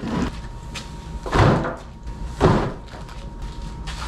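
Two heavy door thuds about a second apart, over a faint steady high tone.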